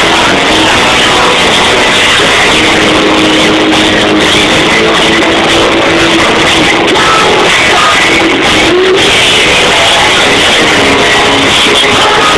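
Live rock band playing loud: electric guitar and drums, with a woman singing.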